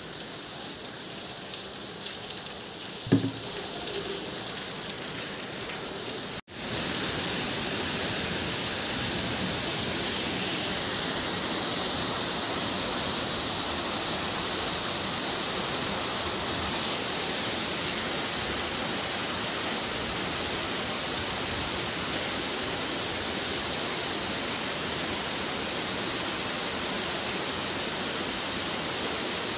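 Heavy rain falling steadily. There is a single sharp knock about three seconds in. About six seconds in there is a brief break, after which the rain is louder and denser.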